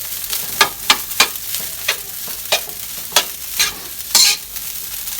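Rice stir-frying in oil in a hot pan, sizzling steadily, with a spatula scraping and knocking against the pan again and again as the rice is tossed and its clumps broken up.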